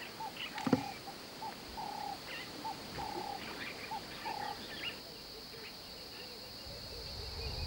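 Wetland animal calls: short calls repeated about every half second, thinning out after about five seconds, over a steady high drone. There is a brief knock a little under a second in.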